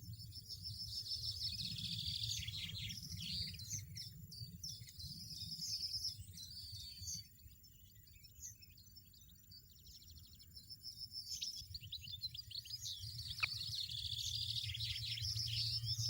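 European goldfinches twittering and chirping in quick, high runs. The calls ease off in the middle and pick up again near the end, over a low steady hum.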